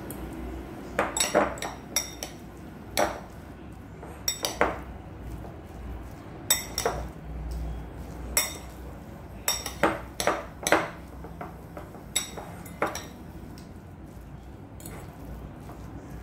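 Metal fork clinking and scraping against a ceramic bowl while mixing minced pork, in irregular clusters of sharp taps that thin out in the last few seconds.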